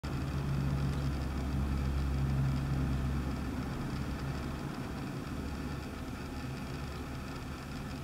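A low, steady mechanical hum over a faint hiss. It is strongest for the first three seconds or so and then eases off.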